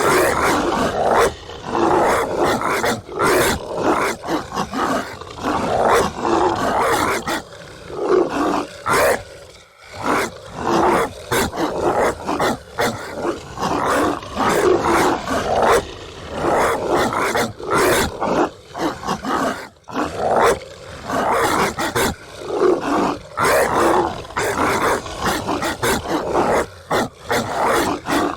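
Golden retrievers barking loudly and repeatedly in rapid, overlapping bursts, with brief lulls about ten and twenty seconds in.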